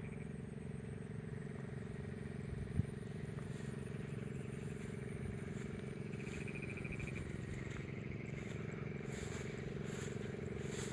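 A small engine drones steadily. There is one sharp click a little under three seconds in, and a faint, fast-pulsing high trill about six seconds in.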